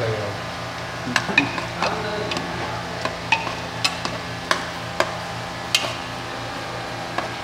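A spoon stirring soybeans into the curry masala in a cooking pot, knocking and scraping against the pot about every half second, over a steady low hum.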